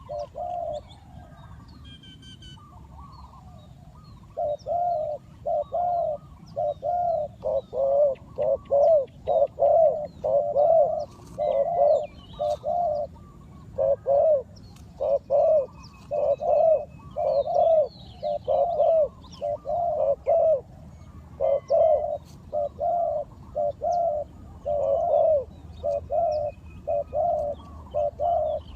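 Spotted dove cooing in repeated phrases of short, low notes, with a pause about a second in that lasts until about four seconds in. Other small birds chirp faintly higher up.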